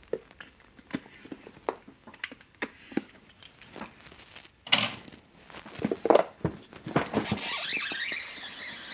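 A utility knife clicks and scratches as it slits the seal of a cardboard camera box, followed by knocks as the box is handled. About seven seconds in, the tight-fitting cardboard lid is slid off with a long scraping rub, a horrible sound.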